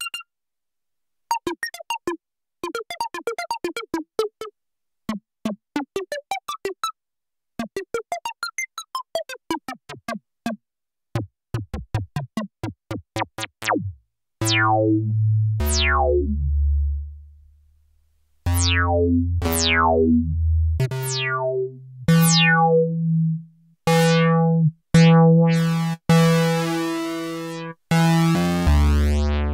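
Novation Circuit Tracks synth presets playing sequenced patterns. First come clusters of short plucked notes with dead-silent gaps between them. About halfway in it changes to heavy bass notes and chords, each starting bright and quickly darkening.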